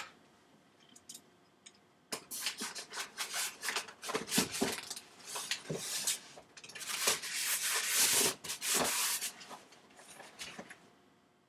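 Off-camera handling of objects: things being moved, rubbed and knocked together in a busy run of scrapes, rustles and short clicks. It starts about two seconds in and stops shortly before the end.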